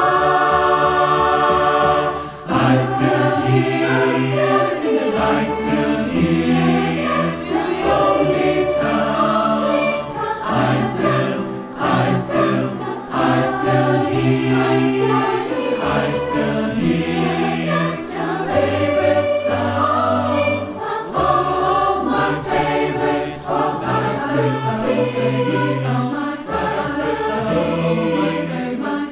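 Mixed-voice choir singing a song in several parts with piano accompaniment, held chords over a low bass line.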